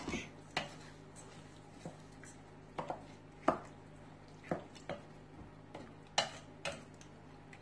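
Wooden spoon stirring a wet egg and minced-meat mixture in a stainless steel mixing bowl, knocking against the bowl with a scattering of irregular taps.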